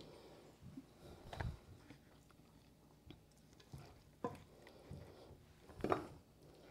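A spoon stirring and scooping a thick, wet tuna mixture in a ceramic mixing bowl, quiet, with a few short knocks and scrapes of the spoon against the bowl.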